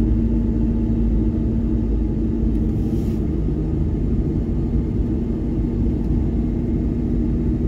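Pickup truck heard from inside the cab while driving: a steady low engine and road rumble with a constant hum.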